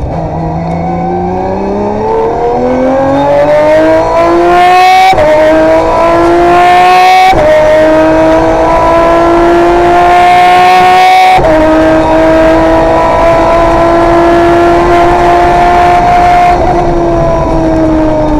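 Aston Martin Vulcan's naturally aspirated 7-litre V12 accelerating hard through the gears on its sequential gearbox. The note climbs, and three quick upshifts each cut it briefly before it rises again. Near the end the revs ease off and the note falls.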